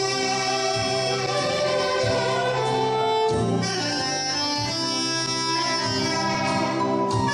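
Live Korean traditional-fusion ensemble music: a reed wind instrument (saxophone or taepyeongso) plays long held notes over recurring drum strokes.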